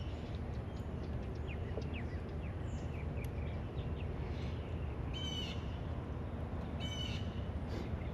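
Birds calling over a steady low background rumble: a few short falling chirps, then two harsh calls, one about five seconds in and one about seven seconds in.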